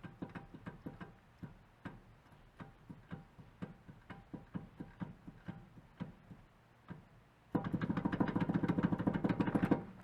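Jacked-up Suzuki Jimny JA11 front wheel rocked by hand, clunking a couple of times a second from play in the worn front hub bearing. Near the end it is shaken fast, giving a louder rapid rattle for about two seconds.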